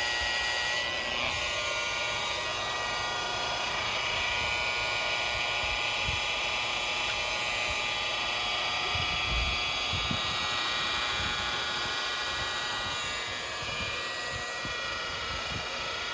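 Milwaukee M18 Fuel cordless rotary polisher running steadily at low speed, its foam pad working polish across a clear vinyl isinglass window, with a few soft low bumps in the middle.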